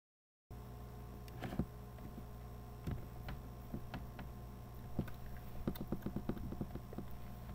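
Steady electrical hum from the recording, starting about half a second in, with irregular soft taps and knocks from hands striking each other and brushing the body and a plush toy during sign language. A quick run of taps comes about three quarters of the way through.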